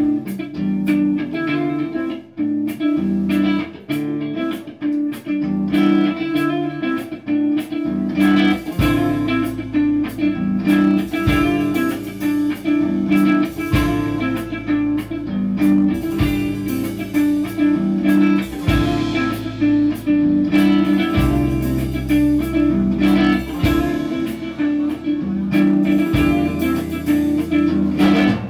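Instrumental post-rock played live on electric guitar: a picked riff of repeated notes. Bass guitar joins about eight seconds in.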